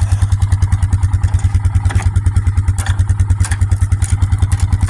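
Small engine of an old riding lawnmower running steadily at low speed, with an even pulse about ten times a second and a few light clicks over it.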